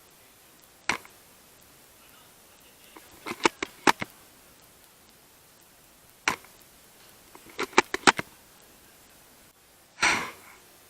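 Tokyo Marui VSR-10 bolt-action spring airsoft rifle being handled: sharp clicks, singly and in small quick groups, as the bolt is worked. Near the end comes a single louder, longer noisy burst, the rifle firing.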